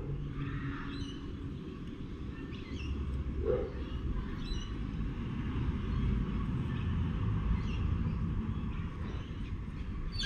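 Outdoor backyard ambience: a low steady rumble with scattered faint bird chirps, and a short falling call near the end.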